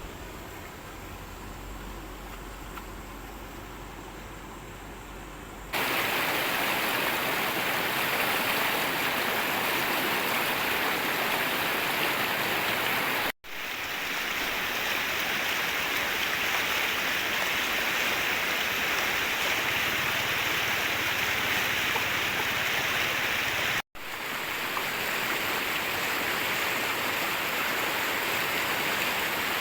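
Steady rushing water, a loud even hiss that starts abruptly about six seconds in after a quieter stretch with a low hum. It cuts out for an instant twice.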